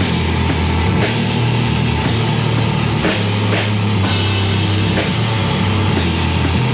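Heavy metal band demo recording: a drum kit with a cymbal crash about once a second over dense, steady low guitar and bass.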